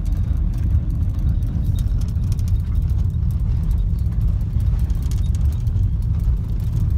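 A car driving along a rough grassy dirt track, heard from inside the cabin: a steady low rumble of tyres and suspension over the uneven ground, with faint light rattles.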